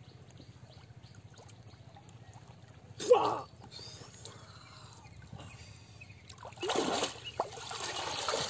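Water splashing as a fish is caught by hand in shallow water: a sudden loud splash about three seconds in, then a longer run of splashing and sloshing near the end as the fisher stands up out of the water.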